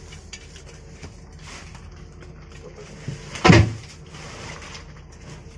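A faint click, then about half a second later a single hard knock against masonry with a short low ring, as the gap under the slab is worked at with a metal rod. A faint steady hum runs underneath.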